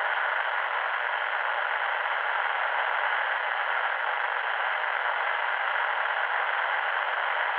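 Steady CB radio static: an even, thin hiss with no voice on the channel.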